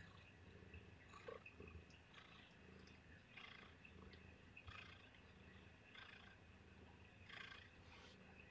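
Faint, steady domestic cat purring, with a soft higher noise about once a second.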